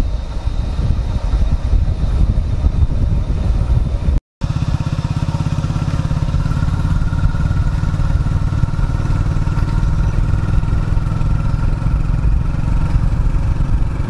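Motorcycle engine running steadily while riding. The sound cuts out completely for a split second about four seconds in.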